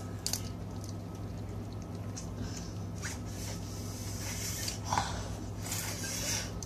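Wet squishing and smacking of crab being eaten and its meat picked from the shell by hand, over a steady low hum. The squishing grows louder over the last few seconds.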